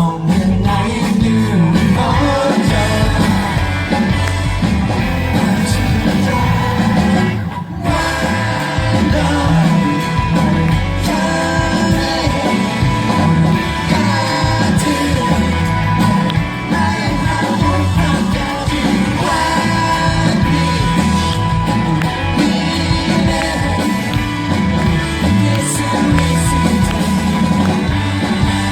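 Live rock band playing a song with singing over a steady beat; the music breaks off for a moment about eight seconds in.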